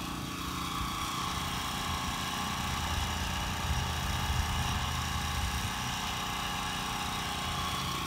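A portable generator's engine running steadily at an even speed, supplying the 110 volts that power the oxalic acid vaporizer.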